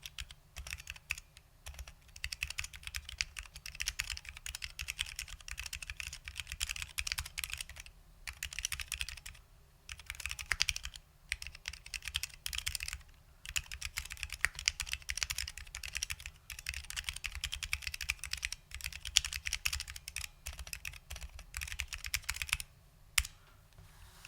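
Custom Unikorn 60 keyboard with lubed SKCL Green Alps switches and doubleshot ABS keycaps being typed on in fast runs of keystrokes, with short pauses between runs, the typing stopping just before the end.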